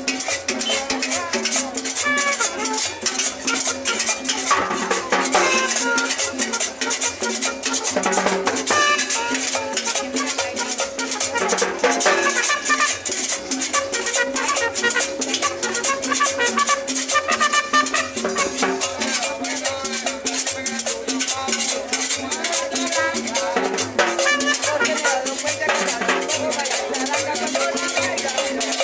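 Live Latin dance band playing fast, upbeat music, with drums and a scraped metal güiro keeping a dense, steady rhythm under a melody.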